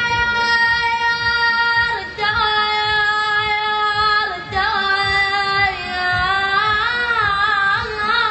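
A single unaccompanied voice sings long, high held notes on a vowel. Each note is held steady for about two seconds and steps down to the next. In the second half it breaks into wavering ornamented turns, a melismatic chanted line of sung poetry.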